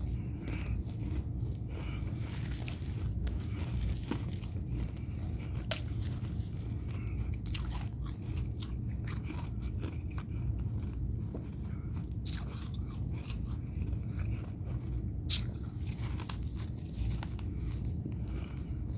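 Fresh freezer frost being bitten and chewed, a continuous irregular crisp crunching with a few louder crunches, the loudest about 15 seconds in.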